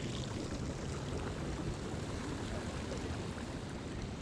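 Steady wind noise rumbling on the microphone, with lake water washing at the shore.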